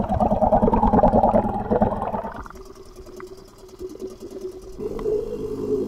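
Yamaha 3 hp two-stroke outboard engine running, heard by a camera dipped underwater beside its propeller: a rapid pulsing drone, loud for the first two seconds or so, then quieter, turning into a steady hum about five seconds in.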